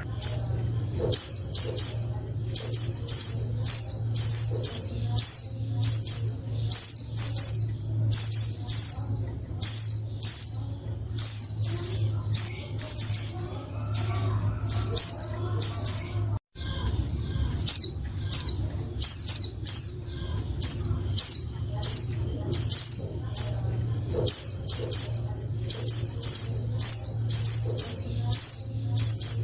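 Female white-eye (pleci) calling noisily: short, high chirping notes repeated a few times a second in quick clusters, the kind of call played to provoke male white-eyes into singing. A steady low hum runs underneath, and the calls break off briefly about halfway through.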